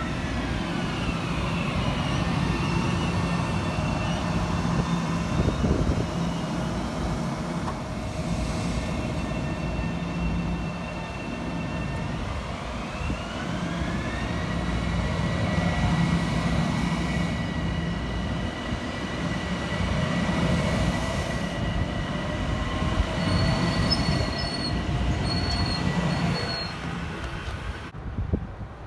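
Metro-North electric multiple-unit commuter train moving along the platform, with a steady rumble of wheels on rail. Over it sit high electric motor whines that slide down in pitch near the start and up again about halfway through. A few short high squeals come near the end.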